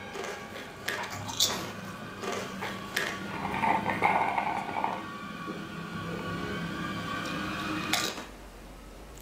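Scattered clinks and knocks of dishes and cutlery at a table over a faint steady tonal background, dropping to a low hum just before the end.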